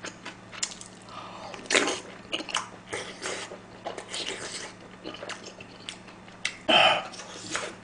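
Close-miked eating: a man chewing and slurping spoonfuls of fish-cake soft tofu stew and shrimp fried rice, with irregular wet mouth sounds and small clicks. There is a louder mouth sound near the end.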